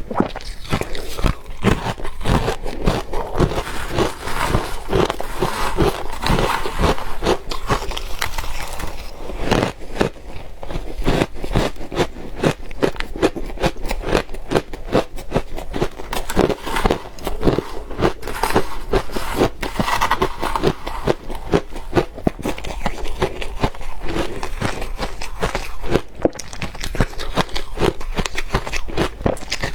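A person biting and chewing soft, powdery ice and crushed ice close to the microphone, with dense, irregular crunching throughout.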